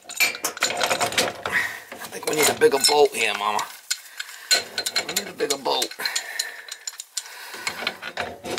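Irregular metallic clinks and scrapes of a wrench and hands working on a boiler's gas valve and its threaded iron pipe fittings.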